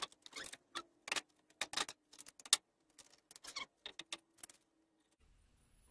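Irregular light knocks and taps of a scrap-wood seat board being shifted and settled onto the top of a folding ladder and its wooden uprights, stopping about four and a half seconds in.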